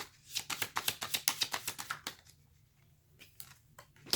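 Tarot cards being shuffled by hand: a quick run of card flicks that stops about halfway, then a few separate flicks and taps of cards, one sharper near the end.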